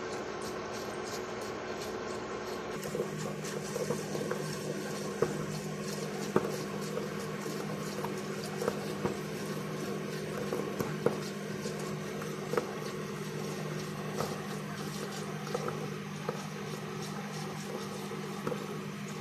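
Liquid in an open can of tuna heating on an electric ceramic hob, starting to simmer: scattered pops and crackles from about three seconds in, over a steady low hum.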